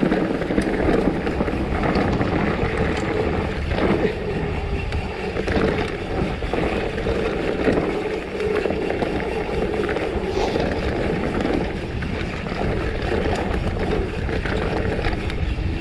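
Wind rushing over an action camera's microphone on a fast-descending mountain e-bike, with the tyres rolling over dirt and stones and small rattles and knocks from the bike, coasting without pedalling.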